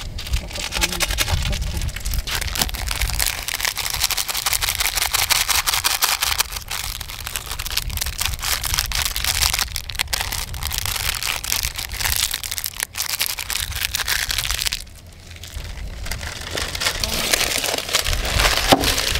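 Dense crackling and sizzling from a shallow pan of ramen broth heating on a portable gas stove, mixed with the crinkle of a seasoning packet being emptied. The crackle drops away briefly about three-quarters of the way through, then comes back.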